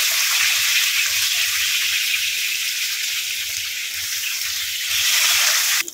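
Pieces of rohu fish frying in hot oil in a pan: a steady sizzle, the fish nearly done. It cuts off suddenly near the end.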